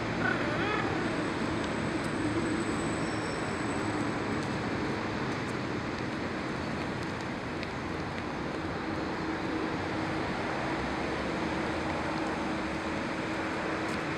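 Steady road traffic noise, an even rushing hum with a faint steady drone joining in about halfway through.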